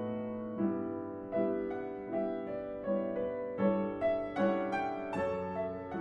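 Background piano music: gentle notes struck about twice a second, each fading away.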